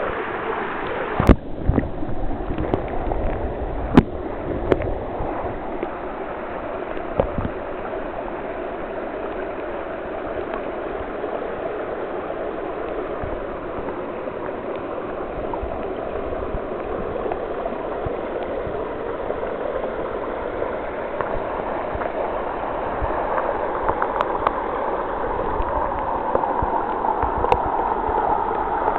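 Stream water rushing and gurgling, heard through a camera held under the water. A few sharp knocks break through it, the loudest about a second and about four seconds in.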